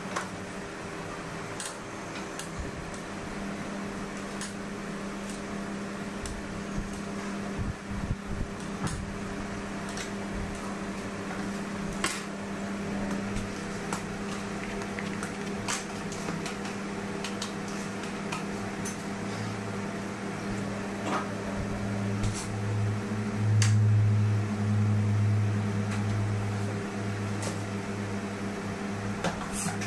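Steady hum of an electric appliance, a deeper hum swelling louder past the middle, with scattered light clicks and taps of a knife and a foil cake board against a stone countertop.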